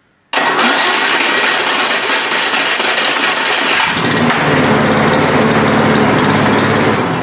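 Briggs & Stratton 175 cc single-cylinder petrol engine on a lawn mower, started with its electric starter on a freshly fitted battery: it starts suddenly and runs loudly, settling into a deeper, steady running note about four seconds in.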